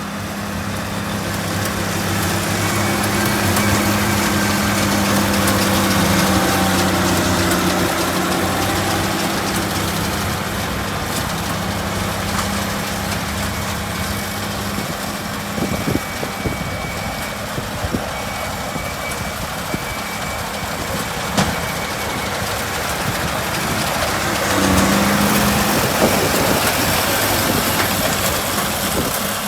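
Case MX135 tractor's diesel engine running steadily, with a brief swell in level about twenty-five seconds in and a few short knocks in the second half.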